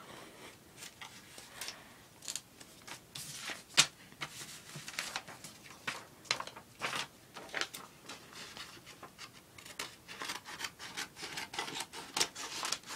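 Scissors cutting sheets of paper in a run of short, irregular snips, about one or two a second, with paper rustling between the cuts.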